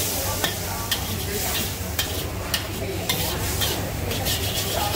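Char koay teow (flat rice noodles) sizzling in a wok over a gas burner while a metal spatula stirs and scrapes it, knocking against the wok about twice a second. A steady low rumble runs underneath.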